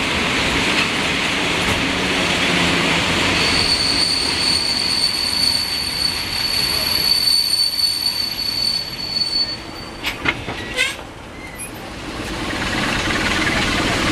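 Passenger train running, heard from an open carriage window: steady rushing wheel-and-rail noise. About three seconds in, a steady high-pitched wheel squeal sets in for about six seconds as the train rounds a curve. It is followed by a few sharp clicks of the wheels over the track.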